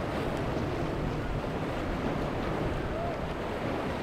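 Steady rushing noise of wind and water with a low rumble underneath, like open-water ambience around boats.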